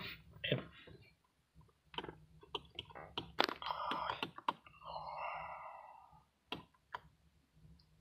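Scattered light clicks and handling noises as a hand presses the push-button start and controls inside a 2016 Mazda 3's cabin, with two short soft rustles around the middle. The engine does not start.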